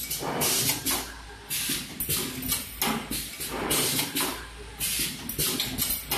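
Wire ring making machine running, with repeated short noisy bursts, several in quick succession and then spaced about a second apart, over a steady low hum.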